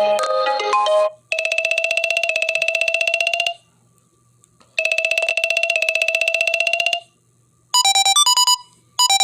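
LG K51 smartphone ringtones playing through the phone's speaker. A melodic tune ends about a second in. A warbling electronic ring follows in two bursts of about two seconds each, and near the end a different ringtone of quick beeps alternating between two pitches begins.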